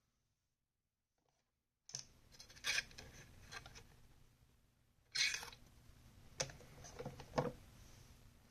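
About two seconds of silence, then clicks, taps and scrapes of small folding-knife parts being handled and set down, with a longer rustling scrape about five seconds in.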